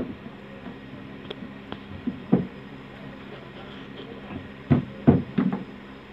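Iron tandoor rods knocking and clinking against each other and the oven's rim in irregular sharp strikes, a quick cluster of them near the end, over a steady low hum.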